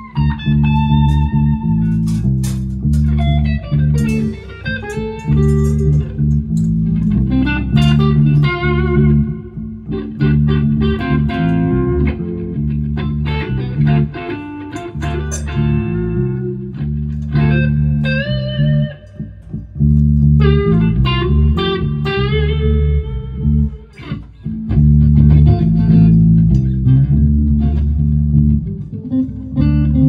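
Amplified electric guitars playing together in a soundcheck jam: a melodic lead line with bends and sliding notes over a low, sustained bass or rhythm part that changes notes every second or two.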